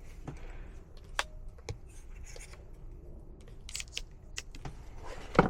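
Scattered light clicks and taps of tools and metal parts being handled at an open furnace's blower compartment, with a louder knock near the end.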